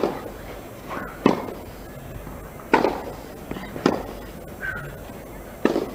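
Tennis rackets striking the ball back and forth in a baseline rally on a clay court. There are five sharp hits, one about every second and a half.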